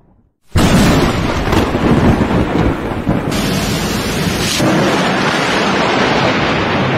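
Thunderstorm: loud rolling thunder over heavy rain, starting suddenly about half a second in and rumbling on without a break.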